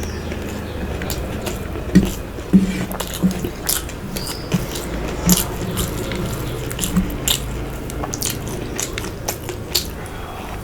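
A person eating close to the microphone: chewing and biting with irregular sharp wet mouth clicks, the loudest a little after the start and again around the middle.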